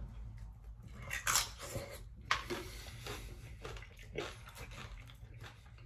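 Close-up eating sounds: a few short wet smacks and chewing as a mouthful of meat filling is bitten from a burrito and chewed, over a faint steady low hum.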